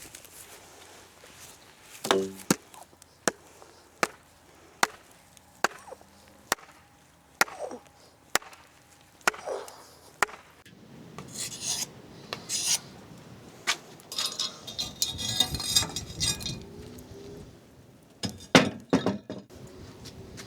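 A series of sharp knocks on wood, evenly paced at a little more than one a second, like chopping. They are followed by several seconds of rustling and scraping, then a couple more knocks near the end.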